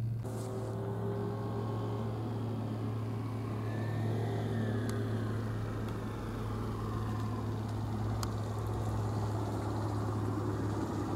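Steady low hum of an engine running at idle, with two faint clicks partway through.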